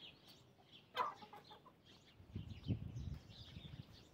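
Hens clucking quietly, with one sharper, louder cluck about a second in. Dull low thumps follow in the second half.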